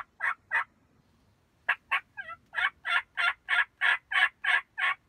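Hen turkey yelps run on a hand turkey call: a few broken yelps, then a steady string of about eight yelps at roughly three a second that grows louder toward the end.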